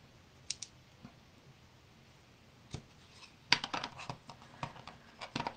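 Light clicks and rustling of small paper pieces and craft supplies being handled on a worktable. There is a pair of sharp clicks about half a second in, then a quick flurry of taps and rustles in the last two seconds.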